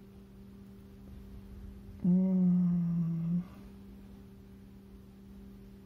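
A man's drawn-out hum, a wordless 'hmm' held on one pitch for about a second and a half, starting about two seconds in. Under it a faint steady low hum runs throughout.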